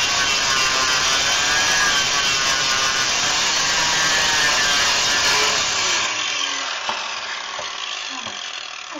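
Angle grinder with a flat disc grinding rivet heads flush on a steel truck frame, its whine wavering as it is pressed into the metal. About six seconds in it is switched off and winds down.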